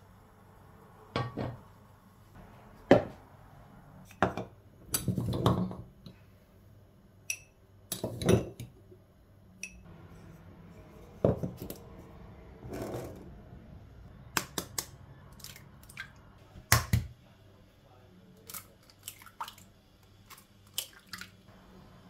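Kitchen handling sounds during cake preparation: a string of sharp knocks and clinks as eggs are cracked into a wooden bowl and glass storage jars and a measuring glass are lifted and set down on the countertop, with a few short scrapes between them.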